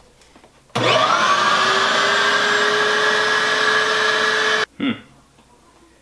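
A 5-horsepower shop vac is switched on about a second in; its motor whine rises and settles to a steady pitch, and it is switched off about four seconds later. It is pulling zero suction because its hose is clogged.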